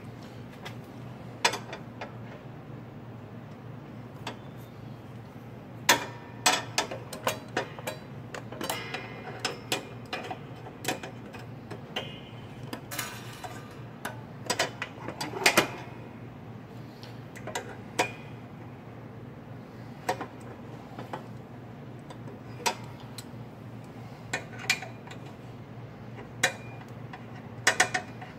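Irregular metallic clicks and clanks from hands working the spring-loaded release handle linkage of a chiropractic table's steel frame, in two busier runs, over a steady low hum.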